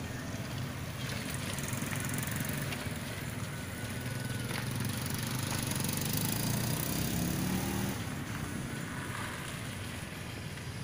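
Small motorcycle engines running as they cross the tracks, one accelerating close by with its pitch rising about six to seven seconds in.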